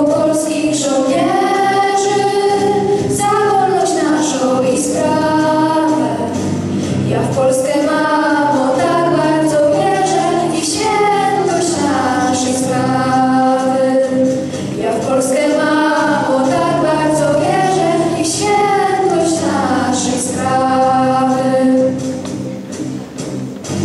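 A group of girls singing a song together into microphones, amplified over a sound system, with instrumental accompaniment underneath.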